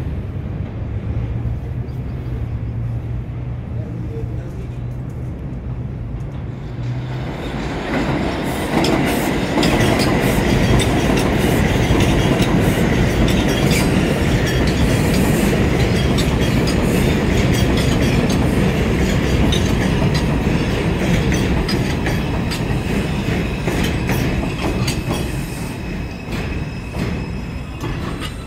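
New York City Subway 4 train (R142 cars) on the elevated Jerome Avenue line: a low steady hum at first, then about seven seconds in the loud rumble and clatter of the train running over the elevated track comes in, with a thin high squeal from the wheels, easing off near the end.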